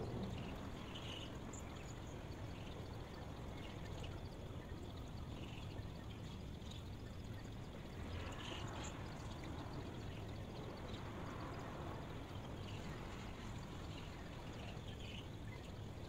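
White noise: a steady, even rushing hiss.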